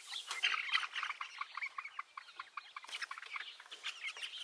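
A flock of Brown Leghorn hens clucking and peeping anxiously, many short calls overlapping without a break. The birds are stressed by a person crawling inside their chicken tractor.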